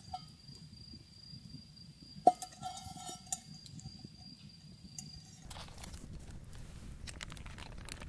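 A metal object clinks sharply once about two seconds in and rings on at one pitch for about three seconds, over a steady high insect trill that stops about five seconds in. Rustling and handling noises follow near the end.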